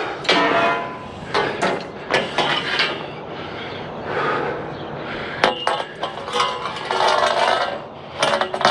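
Long scrap metal poles being wrestled and bent by hand: repeated clanks and knocks with scraping and brief metallic ringing.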